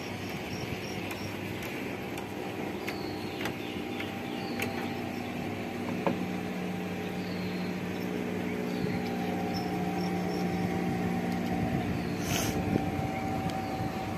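Engine droning steadily, a little louder from about six seconds in, with faint high chirps and a few small clicks over it.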